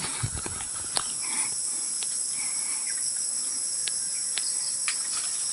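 A steady high-pitched drone of insects, with scattered sharp snaps and rustles from calamansi branches being handled, several in the first second and a few more later.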